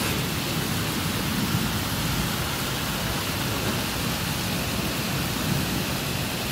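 Heavy monsoon rain falling steadily, a constant even hiss.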